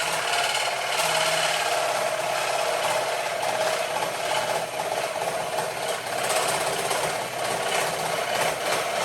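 Scroll saw running steadily, its reciprocating blade cutting a thin piece of wood.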